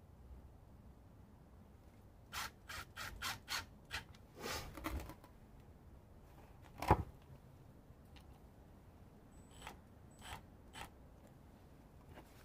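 Handling sounds while a wooden block is set up for a test: a quick run of about six sharp clicks, a short scrape, then a single knock as the block is set down on concrete, with a few faint clicks later on. No impact driver is running.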